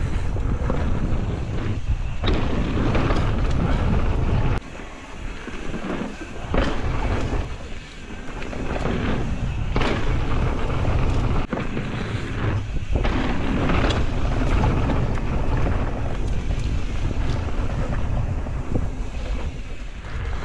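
Wind rushing over the camera microphone at riding speed, with a mountain bike's tyres rolling over a dirt trail and scattered sharp knocks and rattles from the bike on bumps. The rush drops briefly a couple of times, around five and eight seconds in.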